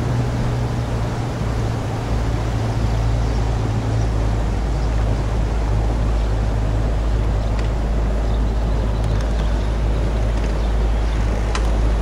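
Pontoon boat's motor running steadily under way, a constant low drone over a rush of water and wind.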